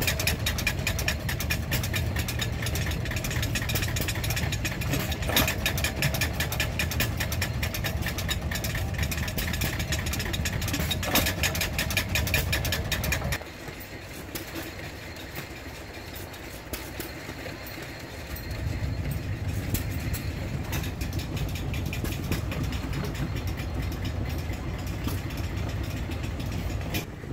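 Small vintage stationary gas engines running steadily. First a vertical single-cylinder engine belt-driving a feed grinder, with a loud, fast, even beat. After a sudden cut, a quieter small engine runs, and the sound grows louder again about two-thirds of the way through.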